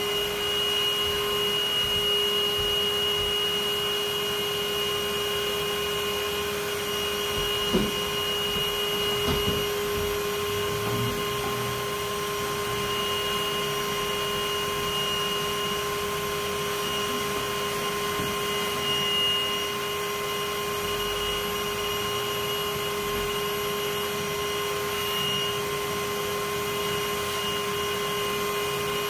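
Bee vacuum running steadily with a constant whine while its hose sucks honey bees off the comb in a ceiling cavity. A couple of short knocks about 8 and 10 seconds in.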